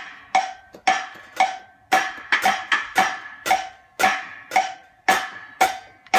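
Drum kit played with sticks: sharp single hits at roughly two a second, each ringing briefly, in a loose even pattern with a few quicker strokes in the middle.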